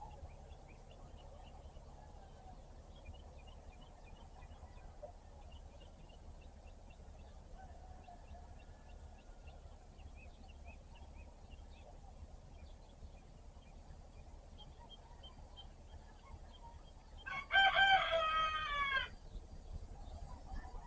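Small birds chirping faintly, then a rooster crows once near the end, loud and about a second and a half long, its pitch dropping at the close.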